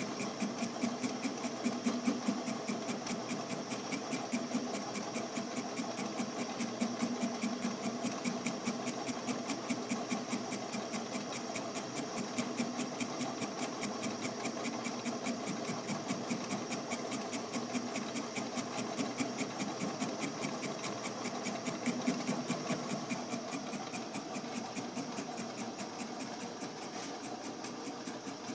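Craftsman Atlas 12-inch lathe running a fly cutter with a single-point turning bit, milling the head of a grade 8 steel bolt: a steady machine hum with a fast, even ticking.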